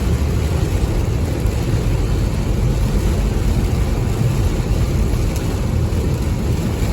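Steady rain together with the low, even rumble of a car on a wet road, an unbroken noise with no distinct events.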